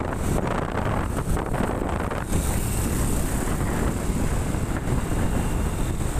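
Steady wind rumble on the microphone of a vehicle moving along a road, over engine and tyre noise from traffic. A higher hiss comes in about two seconds in.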